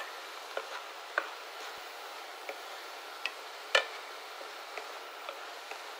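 Wooden spatula stirring button mushrooms and soya chunks in a nonstick pan, with irregular clicks and taps against the pan, the loudest about four seconds in. Under the clicks is a steady sizzle of the food frying.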